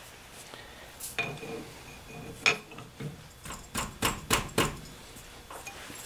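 Sharp metallic clinks and knocks from a four-jaw lathe chuck and its chuck key as the jaws are adjusted to centre the work: a few scattered strikes, then a quick run of about five about two-thirds of the way through.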